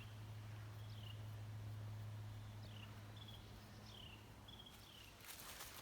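A bird calling in the woods, short down-slurred whistled notes repeated about once a second, over a faint steady low hum that fades out partway through. Footsteps on the trail begin near the end.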